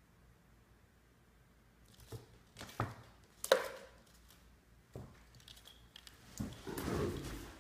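A cat batting at a potted plant's leaves and scrabbling on a hard tabletop: a string of sharp rustles and knocks starting about two seconds in, the loudest in the middle, then a longer scuffling rustle near the end as it rolls about.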